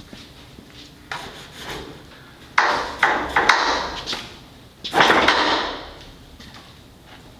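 Several short bursts of metallic clatter, each starting suddenly, loudest about halfway through, during work on steel truck frame rails.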